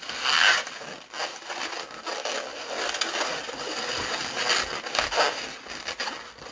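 Latex twisting balloons rubbing and squeaking against each other and the hands as a petal loop is twisted and locked into a balloon flower, with several sharper squeaks along the way.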